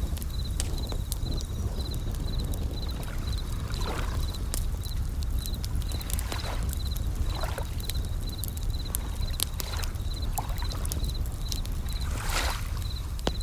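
Bell crickets (suzumushi) chirping in short, evenly repeated pulses at one high pitch, over the crackle and sharp pops of a campfire. Waves wash in every few seconds over a steady low rumble.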